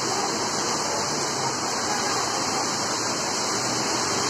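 Heavy rain pouring down as a steady, even rushing hiss.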